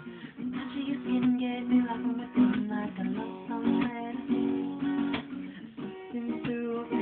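Acoustic guitar being strummed, chords ringing between repeated strokes.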